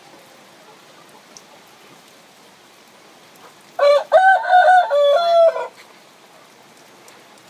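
A rooster crowing once: a single crow of about two seconds, in several linked notes, beginning near the middle, over a steady faint background hiss.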